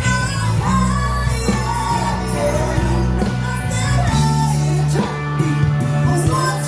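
Live band playing a rock song, with a singer over a steady bass line.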